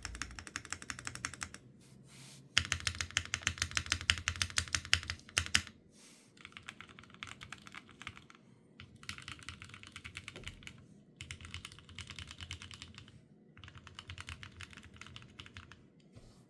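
Typing on a Neo65 mechanical keyboard with stock Gateron Oil King linear switches on a polycarbonate plate, no foam, and GMK keycaps: fast runs of keystrokes in bursts of one to three seconds with short pauses between. The run from about two and a half to five and a half seconds in is the loudest and deepest.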